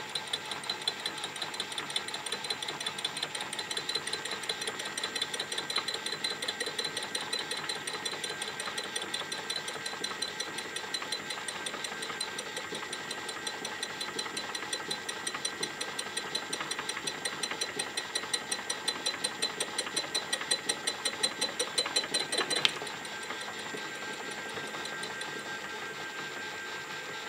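Knee mill spindle turning a boring head with a carbide single-point tool, taking a light first boring cut in a cement mixer's yoke journal: the tool only just touches the bore, giving a fast, even ticking over the mill's running hum. About 23 seconds in the ticking stops as the cut ends, and the spindle runs on alone.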